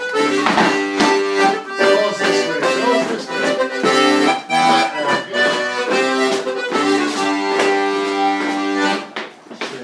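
Melodeon playing a lively traditional dance tune in changing chords, with sharp knocks scattered through it; the tune ends about nine seconds in.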